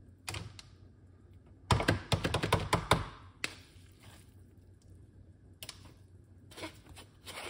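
Spoon tapping and scraping in a plastic mesh sieve as beetroot pulp is pressed through it: a quick run of taps from just under two seconds in to about three seconds, then a few single knocks.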